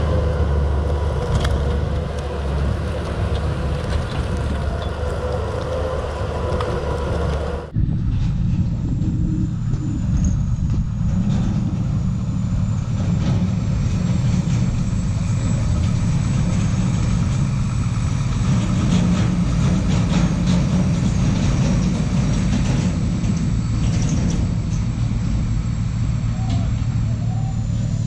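A Timberjack skidder's diesel engine running steadily with a whine in it. About eight seconds in this changes abruptly to a heavy truck's diesel engine running low and steady as it pulls the skidder on a low-loader trailer across a ferry's car deck.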